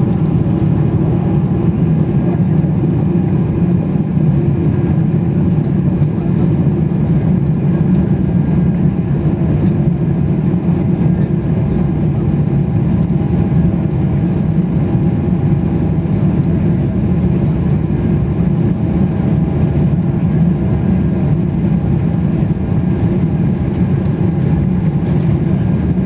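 Steady cabin noise inside a Boeing 777-300ER taxiing, its GE90-115B engines at taxi power: a constant low rumble with a faint steady whine above it.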